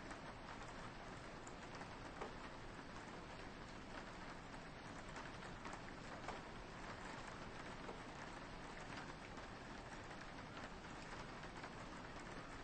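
Soft rain falling on a window: a steady, quiet hiss with scattered faint drop ticks.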